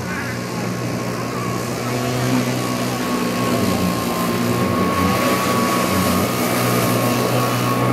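Small homemade hovercraft's motor and fan running, a steady drone with a thin high whine that grows gradually louder as the craft comes closer.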